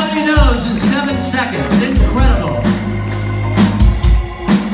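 Live rock band playing: electric guitars, bass guitar and drum kit, with held bass notes under a bending melodic line and drum hits.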